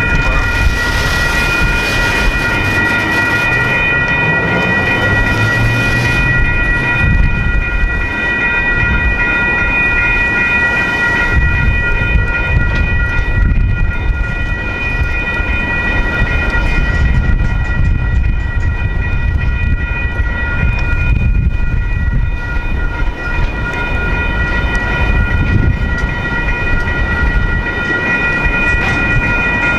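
Freight train cars rolling through a grade crossing, wheels rumbling and clacking, while the crossing bell rings steadily.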